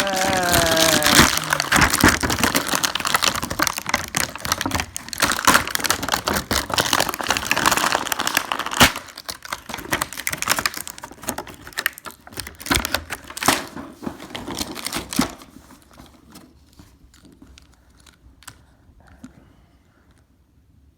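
Toy packaging being crinkled and torn open, a dense run of rustling with sharp cracks and clicks. About fifteen seconds in it dies down to a few scattered clicks.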